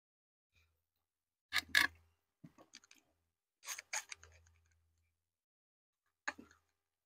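Crisp crunching bites and chewing: a few short, sharp crunches come in small groups between silent pauses.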